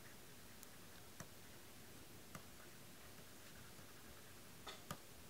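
Near silence: room tone with a few faint clicks of a pen as it writes, two of them close together near the end.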